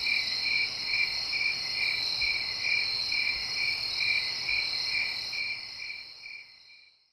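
Night chorus of crickets and other insects: a steady high trill with a chirp pulsing about two to three times a second, fading out over the last two seconds.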